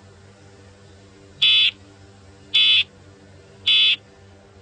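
Emergency Alert System end-of-message data bursts: three short, loud, buzzy digital squawks about a second apart, the signal that closes an alert broadcast. A faint steady hum runs underneath.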